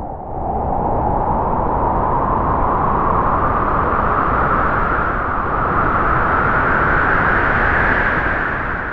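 A gust of wind: a loud rushing whoosh that swells within the first second, holds while slowly rising in pitch, and begins to die away near the end.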